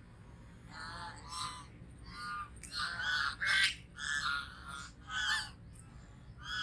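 Geese honking, a quick run of short calls about twice a second, some overlapping.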